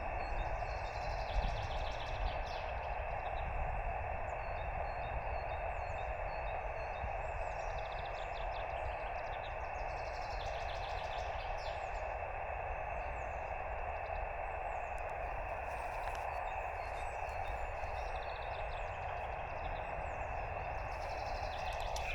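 Shortwave transceiver's speaker hissing with receiver noise on an empty SSB channel while listening for a reply to a CQ call. Birds chirp faintly in the background over a low rumble.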